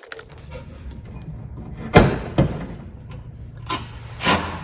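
Metal parts knocking during hand assembly work: one sharp knock about two seconds in, a second shortly after, and lighter knocks near the end, over a low steady hum.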